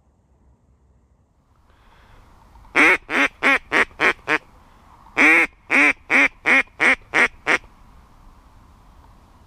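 Mallard-style duck quacking: two loud series of quacks, the first of six getting shorter and quicker, the second of seven evenly spaced, in the pattern of a hen mallard's call.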